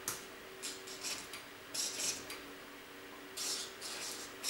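Writing on a cardboard moving box: a series of short scratchy pen strokes, coming faster near the end, over a faint steady hum.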